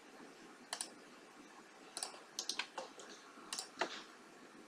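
Computer mouse clicking: about eight short clicks, scattered, with a quick run of several about halfway through.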